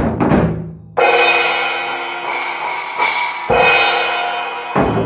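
Drum strokes fade out, then a cymbal is struck hard about a second in and rings on, struck again twice more, midway through and near the end.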